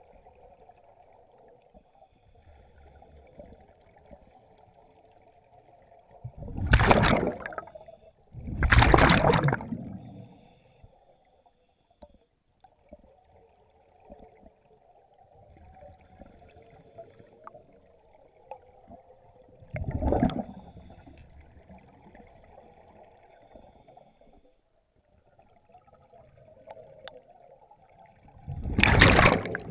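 Scuba diver's exhaled breaths bubbling out of the regulator underwater: two loud bursts close together about a quarter of the way in, another about two-thirds through, and one near the end, with a faint steady hum between them.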